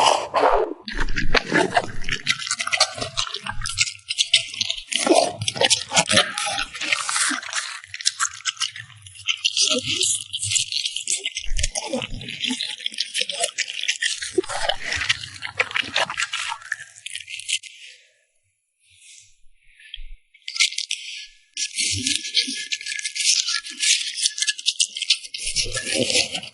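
French bulldog crunching and chewing food bite by bite close to the microphone: rapid dense crunches with snoring noises from the dog mixed in. The crunching stops for about three seconds past the middle, then starts again.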